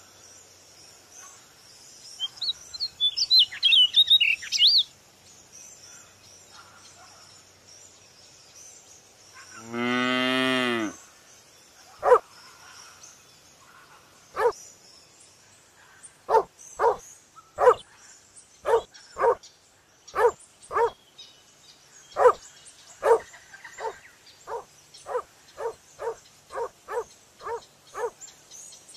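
Animal sounds: a few seconds of quick high bird chirps, then one long low call like a cow's moo. A run of short sharp calls or knocks follows and comes faster near the end.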